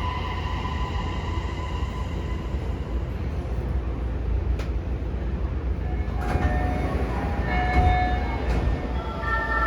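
Toei 6500-series subway train running, heard from inside the car: a steady low rumble of wheels on rail, with the whine of its Mitsubishi hybrid SiC VVVF inverter and induction motors. The whine fades in the first couple of seconds, then returns about six seconds in as several tones that shift in steps, strongest near the end.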